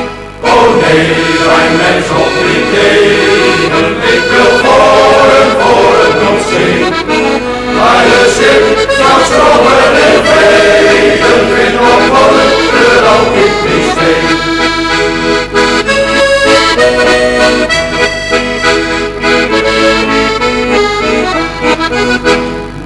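Accordion music in a traditional folk style, loud and continuous.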